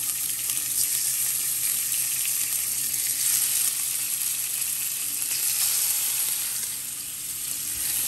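Creole-seasoned mahi-mahi fillets sizzling steadily as they fry in hot oil, with a brief lull near the end.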